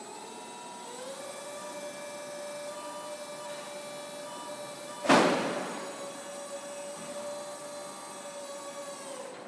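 Electric forklift's hydraulic lift pump whining steadily as the mast raises a loaded pallet, rising in pitch as it spins up in the first second and dropping as it stops near the end. A single loud clank about five seconds in.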